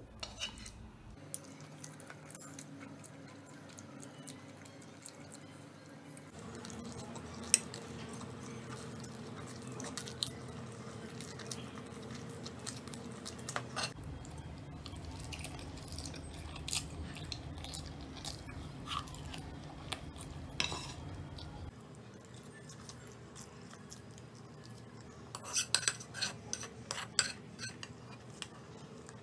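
Chopsticks and a spoon clicking and scraping against a non-stick frying pan as noodles are gathered up. The clicks are scattered, with a quick cluster of them near the end.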